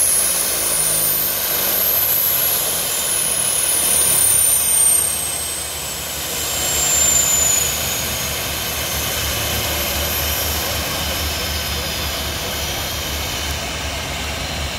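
The OV-10D+ Bronco's twin Garrett T76 turboprop engines running on the ground during engine trimming. A high turbine whine falls in pitch over the first several seconds, then settles into a steady run over a low hum.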